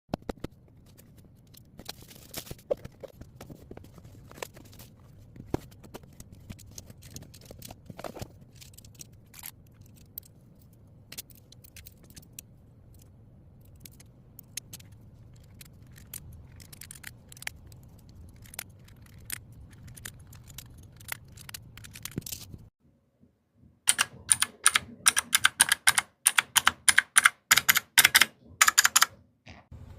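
Mechanical keyboard switches clicking as the keys of a keyboard-style parking number plate are pressed: scattered clicks over a low hum, then, after a short pause, a quick run of much louder clacks near the end.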